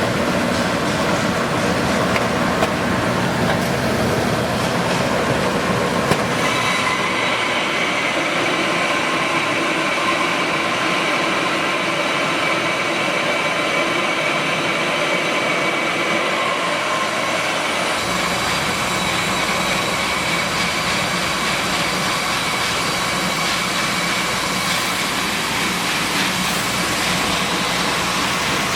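Maize milling machinery running steadily: a loud, continuous mechanical noise with held whining tones. The sound changes character about six seconds in and again near eighteen seconds.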